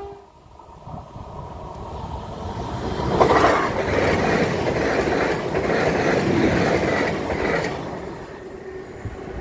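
A Great Western Railway Hitachi intercity express train passing at speed. Its rumble builds over the first three seconds, is loudest for about four and a half seconds as the carriages go by, then fades as it draws away.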